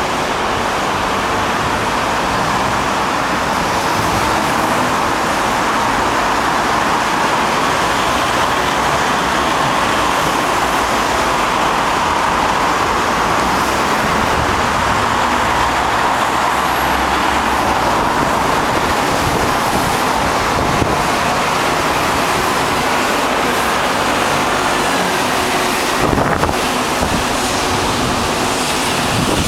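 Steady road traffic noise mixed with wind buffeting the microphone, with a few short gusts near the end.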